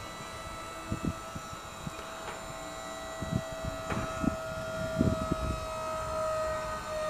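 JLG 1930ES electric scissor lift raising its platform: the DC motor and hydraulic pump run with a steady whine, with a few low knocks from the rising scissor stack.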